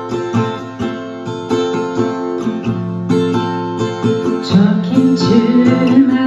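Acoustic guitar playing a steady pattern of chords, with a voice coming in singing about four and a half seconds in.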